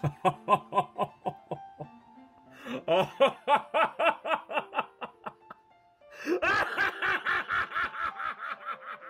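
A man's maniacal villain laugh, a voice actor's evil cackle, in three bouts of rapid pulsed "ha-ha" syllables, the last one higher-pitched. Background music plays under it.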